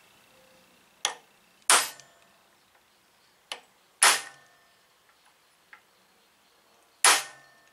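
Hammer striking the end of a socket extension seated in a tight, corroded screw in an aluminium brake caliper, to shock it loose. Three sharp metallic blows, each ringing briefly, with a lighter tap before the first two.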